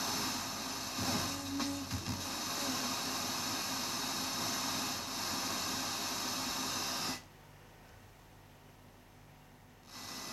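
FM hiss from a Rotel RX 304 receiver's tuner as the dial is turned between stations. About seven seconds in the hiss cuts out suddenly to near silence, and sound comes back near the end.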